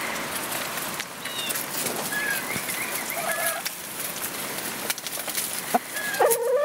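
Hens clucking while they peck and scratch through a compost pile of dry leaves and grain: short high calls here and there over a patter of small clicks and rustling, then a longer, lower call near the end.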